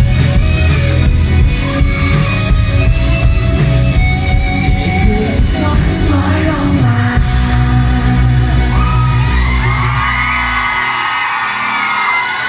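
Live pop-rock band playing with a singer over keyboard and electric guitars, the song ending near the end: the bass and drums stop about eleven seconds in, leaving voices singing and shouting.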